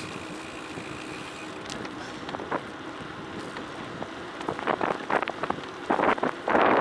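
Wind rushing over the microphone and tyres running on a gravel forest road during a downhill ride. From about four and a half seconds in there are bursts of loud clattering and rattling as the ride hits rough ground.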